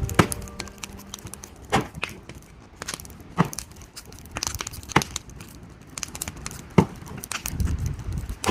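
A series of sharp knocks, about one every second and a half, with smaller clicks and rustles between.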